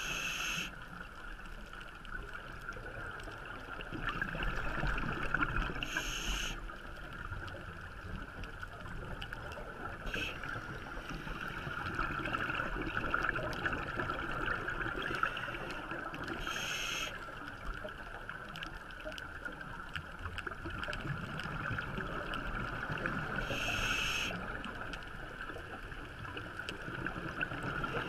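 Underwater sound of a scuba diver breathing through a regulator: a steady watery hiss, with short bursts of exhaled bubbles every six or seven seconds.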